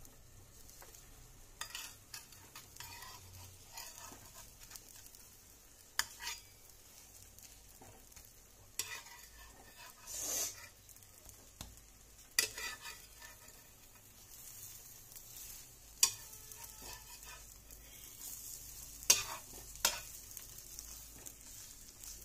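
Metal spatula scraping and tapping against a non-stick frying pan as an egg omelette is folded and shaped, several sharp strokes over the faint, steady sizzle of the omelette frying.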